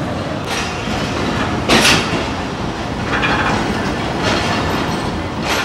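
Passenger train pulling out past a platform, with a steady rumble and a sharp clack of wheels over rail joints a little more than once a second, five in all.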